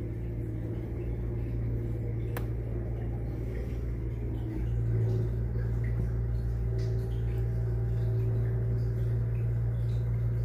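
Kubota mini excavator's diesel engine running steadily with a low hum, getting a little louder about halfway through.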